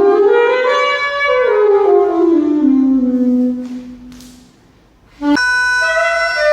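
Improvised instrumental music: a single melodic line climbs, then steps down and dies away about four seconds in. After a short pause a new note starts abruptly just after five seconds.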